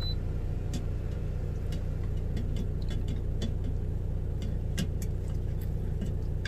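Steady low hum of an idling engine, with scattered light ticks and pops.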